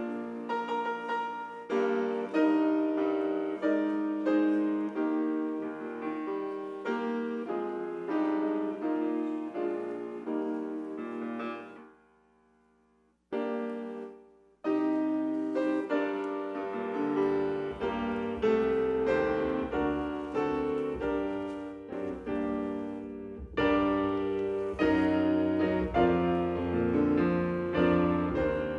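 Solo piano playing a slow instrumental piece, notes struck and left to ring; it stops briefly about twelve seconds in, then resumes with deeper bass notes joining a few seconds later.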